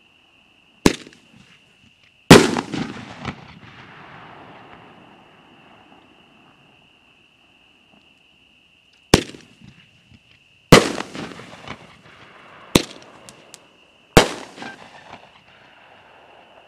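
Consumer 1.4G firework shells (Pyro Junkie 24k Gold and War Pig, Showtime Zero Gravity) fired three times. Each shot gives a sharp launch report, then about a second and a half later a louder burst. The bursts trail a crackling, fizzing tail from the glitter and strobe stars.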